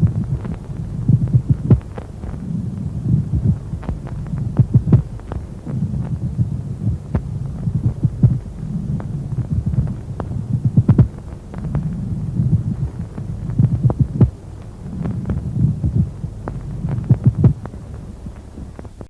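Stethoscope recording of a pleural friction rub: low breath noise swelling and fading with each breath, overlaid with many sharp rubbing clicks, the main auscultatory sign of dry pleurisy.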